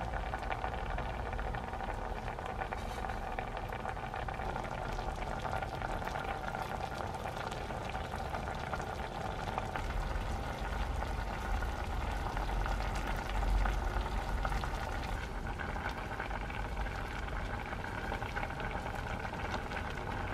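Rice cakes and noodles in spicy liquid sauce boiling hard in a stainless steel saucepan: a steady bubbling with dense crackles. Its tone shifts slightly about ten seconds in and again about fifteen seconds in.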